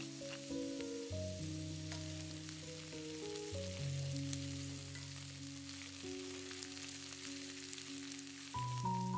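Sliced potatoes, carrots and onion sizzling in a cast-iron skillet while wooden utensils stir them, with light clicks and scrapes, over soft background music of slow, sustained notes.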